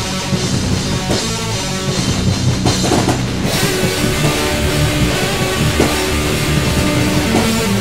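Instrumental metal played by a band: digitally recorded electric guitars over an acoustic drum kit, with no vocals or bass. About three and a half seconds in, the sound turns fuller and brighter.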